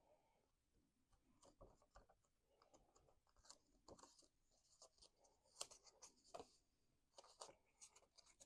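Faint, scattered rustling, light scratching and small clicks of cardstock pieces being handled and pressed together.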